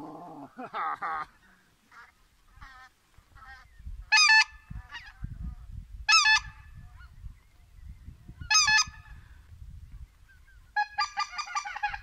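Geese honking overhead as a flock circles in. There is a cluster of honks at first, then three loud, close honks about two seconds apart, and near the end a rapid run of overlapping honks.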